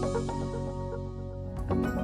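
Background music with sustained notes, no narration.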